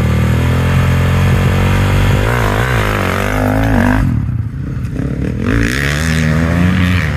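Dirt bike engine running at the start line, then revving and accelerating away hard. The pitch wavers and climbs, dips about four seconds in, and climbs again near the end as the bike pulls away.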